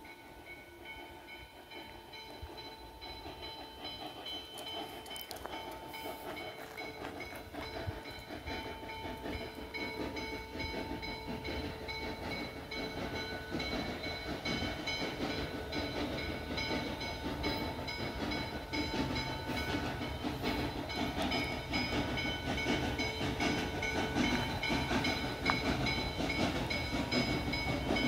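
Western Maryland Scenic Railroad's 1309, a 2-6-6-2 articulated steam locomotive, working through a tunnel toward the listener, its rumble growing steadily louder as it approaches.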